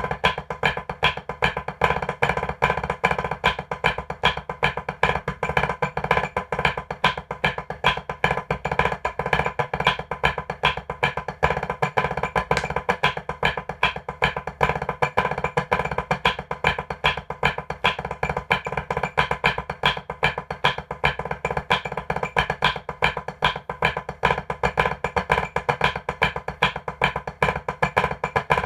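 Wooden drumsticks striking a rubber drum practice pad in fast, even strokes with regular louder accents: drum rudiments being practised.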